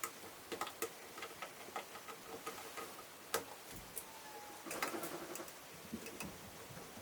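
Faint, irregular small clicks and ticks of a tiny Phillips screwdriver working the small screws out of a laptop screen mount, with light taps of handling the parts. There is a sharper click a little over three seconds in and a quick run of clicks near five seconds.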